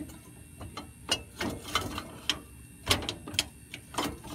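Steel inner leg of a fifth-wheel landing gear being slid back into its outer tube: a run of irregular metallic clanks and clicks, the loudest about three seconds in.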